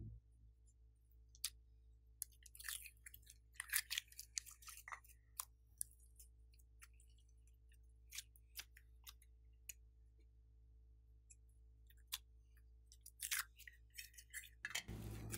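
Blue slime being handled and squeezed between the fingers: scattered faint sticky clicks and pops, in clusters a few seconds in and near the end, over a low steady hum.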